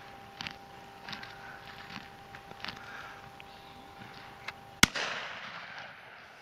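A single shotgun shot about five seconds in, fired at a bird flying high over the gun line, the loudest sound, followed by a rolling echo that fades over about a second. Faint scattered ticks before it.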